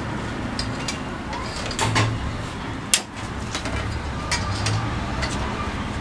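Iron hooks clinking and scraping against a clay tandoor as naan is lifted out, with scattered light clicks and one sharp knock about three seconds in, over a steady background din.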